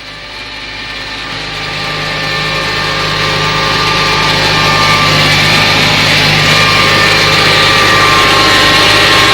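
Claas Arion tractor and Grimme SE 75-30 potato harvester running steadily: an even engine drone with a mechanical whine over it. It grows louder through the first few seconds, then holds.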